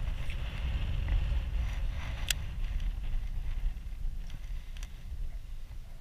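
Wind buffeting the microphone in a low, uneven rumble over choppy water slapping at a small boat, with a single sharp click about two seconds in.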